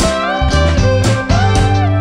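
Background guitar music: a melody whose notes slide up and down in pitch over plucked chords and a steady bass.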